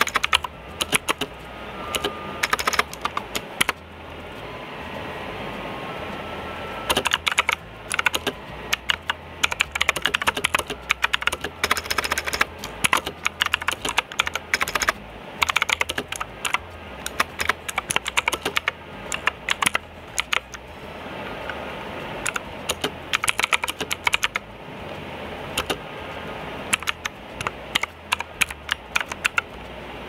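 Typing on a Redgear Shadow Blade mechanical keyboard with clicky blue Cherry MX-clone switches: fast runs of sharp key clicks in bursts, with a pause of a few seconds early on and shorter pauses later.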